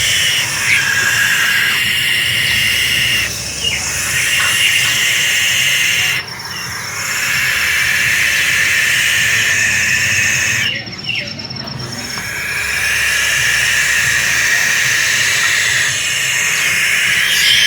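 A young owl giving long, loud, rasping hisses one after another, each lasting a few seconds with brief breaks between them: the begging hiss of a chick.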